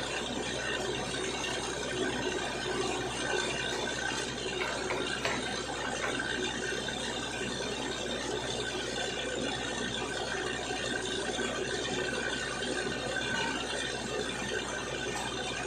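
Truck-mounted borewell drilling rig running steadily: a constant mechanical din with a few steady tones, and no pause or change in pace.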